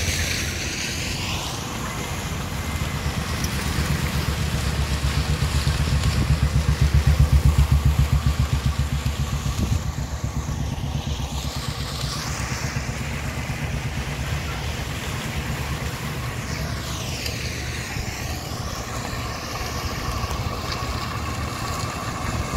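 Small engine of a walk-behind concrete power trowel running steadily, loudest about a third of the way in and then settling to a lower, even drone.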